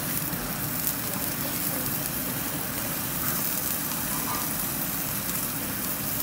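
Marinated kalbi beef sizzling steadily on a gas-fired cast-iron grill grate, with the flame hissing under it.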